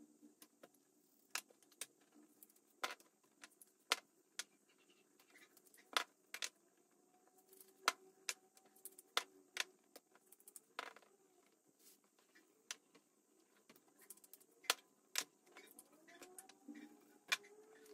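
Light, irregular clicks and taps of kitchen utensils and containers handled on the counter while raw chicken breasts are seasoned with salt and pepper and stuffed with Oaxaca cheese.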